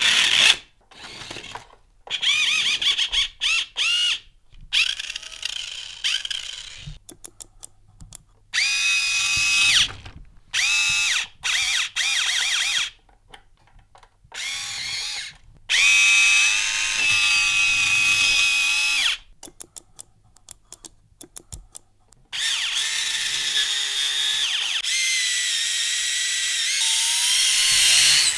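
The small electric motor and gearbox of a toy monster truck whining, its wheels spinning. It runs in repeated bursts of one to three seconds that start and stop abruptly, then in a longer run of about six seconds near the end, whose pitch rises. It is fed from a bench power supply at rising voltages, up to about 9 V, well above what it was built for.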